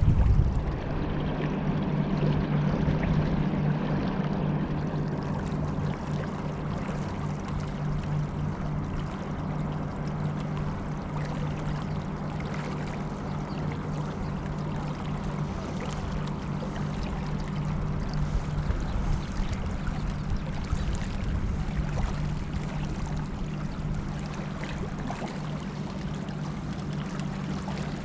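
A motorboat's two engines running steadily, a constant hum over water rushing past the hull.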